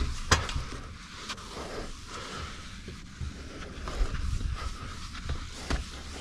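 A wet, soapy window pane being scrubbed by hand with a cleaning pad: rubbing strokes on the glass, with a sharp click about a third of a second in and a low rumble underneath.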